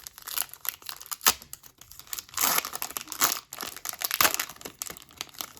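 Wrapper of a hockey card pack being torn open and crinkled, a run of crackling, loudest about two and a half seconds in and again about four seconds in.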